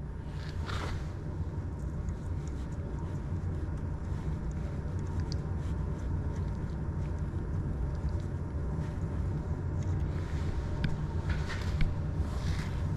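Steady low machine hum, with a few small clicks near the end from hands working the metal dock pins of a 3D printer's tool dock.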